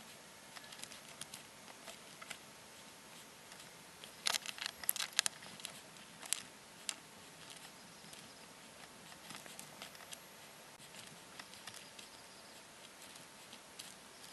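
Small, sharp clicks and taps of hand-painting a miniature at a desk, a brush and paint pots being handled, with a quick cluster of louder clicks about four to five seconds in.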